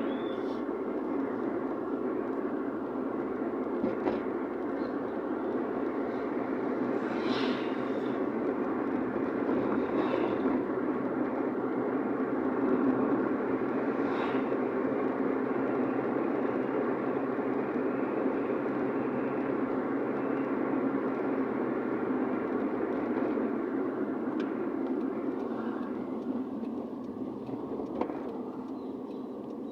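Car driving along: steady road and engine noise heard from inside, with a few faint irregular clicks.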